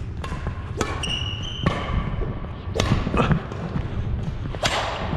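Badminton rally: several sharp racket strikes on the shuttlecock, with sneakers squeaking on the wooden court about a second in and thudding footfalls as the players move.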